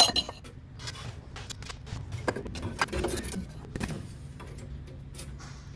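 Light metallic clinks and knocks as an engine cooling fan and pulley are handled and fitted onto a water pump hub, over a low steady hum.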